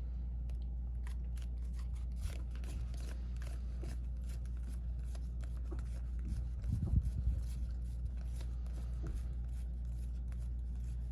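Trading cards being flipped through and handled, giving soft, quick clicks and slides, with a slightly louder flurry about seven seconds in, over a steady low electrical hum.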